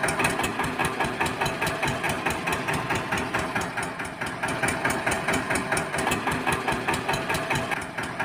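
Tractor engine sound effect running at a steady, evenly pulsing chug, laid over a toy tractor rolling along.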